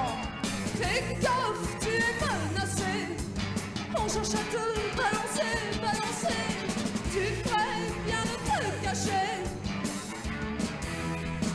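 Live ska-leaning rock band playing: a wavering, bending lead melody over bass and drums.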